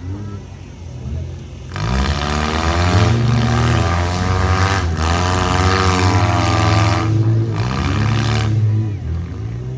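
Demolition derby vans' engines revving hard, the pitch rising and falling as they push against each other. A loud, rough rushing noise comes in about two seconds in and drops away shortly before the end.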